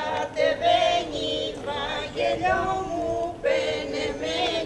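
A group of women singing a Greek folk song together unaccompanied, in long held notes.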